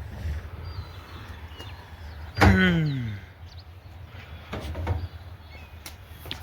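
A single loud creak about two and a half seconds in, falling in pitch over most of a second, over a steady low rumble. A few lighter knocks follow near the end.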